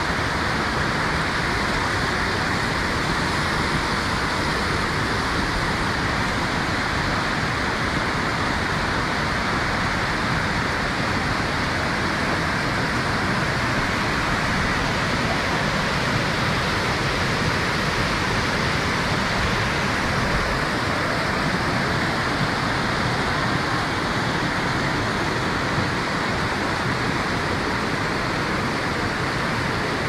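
Waterfall cascade: water rushing steadily over smooth rock and between boulders in a continuous, even rush.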